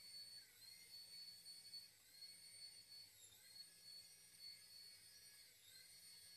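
Exceed toy helicopter's small electric rotor motors whining faintly at a high pitch as it hovers, the pitch dipping briefly and recovering about three times.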